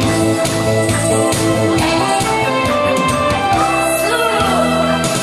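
Upbeat accompaniment music with a steady beat playing loudly over a PA system, with a woman singing live into a microphone.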